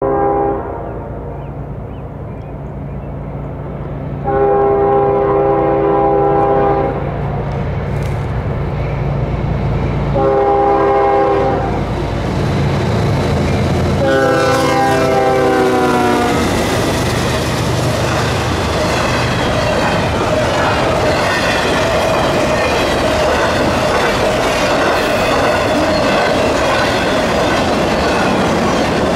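CSX freight train's diesel locomotives sounding their air horn three times for a grade crossing, over the low drone of the engines; the third blast falls in pitch as the lead locomotive goes by. After that, the double-stack and trailer cars roll past with a steady clickety-clack and wheel-on-rail noise.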